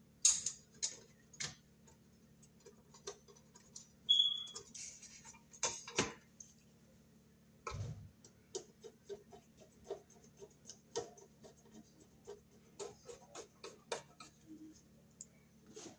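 Hand screwdriver turning the screws that hold the metal cover onto a breaker panel: scattered small clicks and scrapes at irregular spacing, with a brief high squeak about four seconds in. A faint steady low hum underneath.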